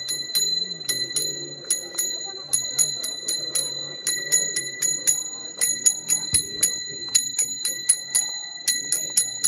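A metal bell struck rapidly in a steady rhythm, about four to five strokes a second, its ringing tone sustained between strokes, with voices faintly chanting or singing underneath.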